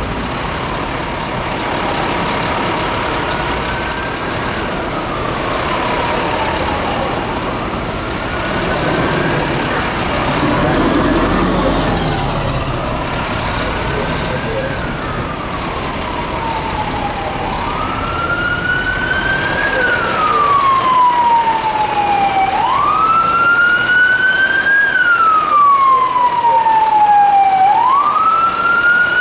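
Fire apparatus siren wailing in repeated cycles, each a quick rise in pitch followed by a slower fall, about every five seconds. It gets clearly louder about two-thirds of the way through. Underneath run city traffic and heavy engine rumble.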